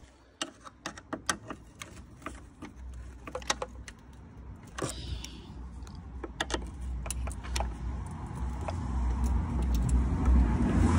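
Clicks and small metallic ticks of a T25 Torx T-handle driver working the headlight's mounting bolts, which are stiff with threadlocker. A low rumble builds and grows louder toward the end.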